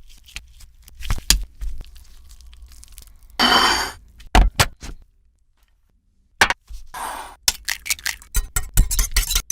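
Food-preparation handling sounds: a series of sharp knocks and clinks, with two short scraping or rustling bursts, one about a third of the way in and one about three quarters in, and a brief quiet gap just after the middle.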